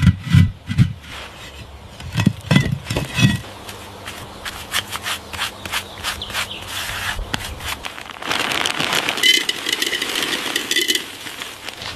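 Knocking and scraping on wood: a few deep knocks in the first few seconds, then clicks and rubbing, with louder, steadier scraping from about eight seconds in.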